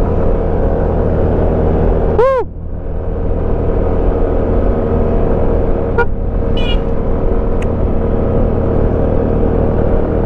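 Yamaha Smash underbone motorcycle's single-cylinder four-stroke engine running steadily while riding. About two seconds in there is a short loud tone that rises and falls in pitch.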